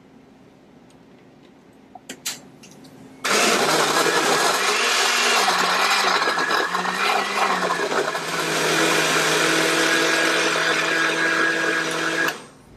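Hamilton Beach Power Elite countertop blender with a glass jar crushing frozen fruit and ice. After a couple of short clicks, the motor starts about three seconds in. Its note wavers while the frozen chunks are being broken up, then holds steady as the mix turns smooth, and it cuts off just before the end.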